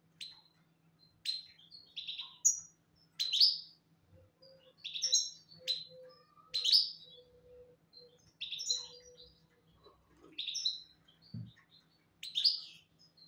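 Songbird chirping sharply and repeatedly, about one loud chirp a second, each a quick high note sweeping down, with softer twitters in between. A faint lower trill runs under it for a few seconds in the middle, and a single low thump comes near the end.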